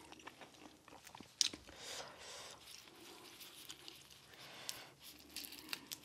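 Boiled crawfish shell cracking and being peeled apart in gloved hands, a run of small clicks and crackles with one sharp snap about a second and a half in.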